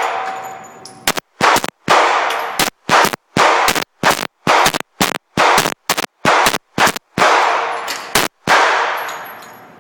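Firearm fired rapidly in semi-automatic succession: about fifteen sharp shots over some seven seconds, irregularly spaced, each trailing off in a reverberant tail.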